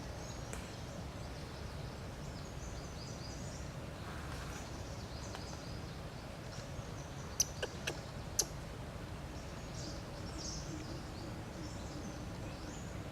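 Outdoor ambience: a steady low rumble with scattered high bird chirps, and four sharp clicks in quick succession a little past the middle.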